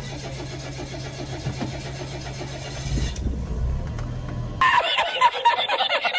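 Small Suzuki car's engine starting and running at idle with a steady low hum. About four and a half seconds in, it cuts abruptly to a man's loud, hearty laughter.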